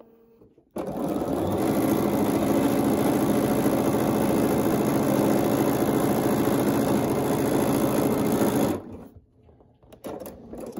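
Bernina sewing machine running at a steady speed, stitching a seam through pieced quilt blocks. It starts about a second in and stops near the end, followed by a few light clicks.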